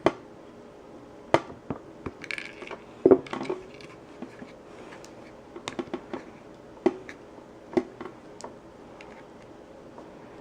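Irregular clicks and knocks of a Glock pistol's polymer frame, beavertail backstrap and steel pin being handled as the pin is worked into holes that won't line up, with a short scrape about two seconds in and the loudest knock about three seconds in.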